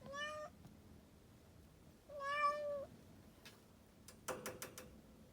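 A kitten meowing twice, a short meow and then a longer one, calls typical of a cat asking to be let outside. Near the end comes a quick run of sharp taps or clicks.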